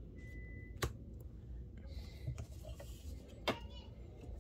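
Quiet handling of trading cards: a Pokémon card being laid down on a playmat, with two short clicks, one about a second in and one about three and a half seconds in, over a low hum.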